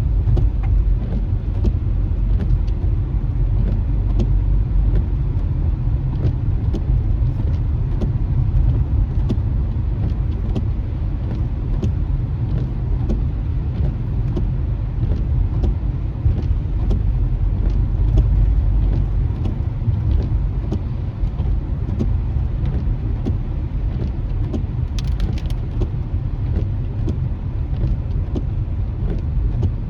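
Steady low rumble of a car driving on wet pavement, engine and tyre noise heard from inside the cabin, with scattered light ticks of raindrops on the windshield.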